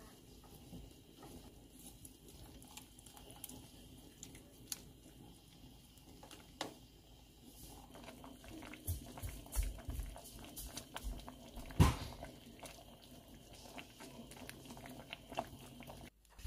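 A pot of soup simmering, with soft bubbling and scattered small pops, a few low thumps, and one sharper knock about twelve seconds in.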